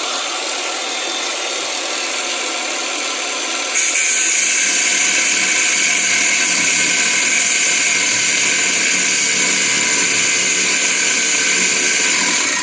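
Bauer cutoff tool running and cutting an exhaust pipe clamp with its abrasive wheel. About four seconds in it gets louder and higher as the wheel bites into the metal, then holds steady. The owner finds the tool underpowered: it heats up and shuts off.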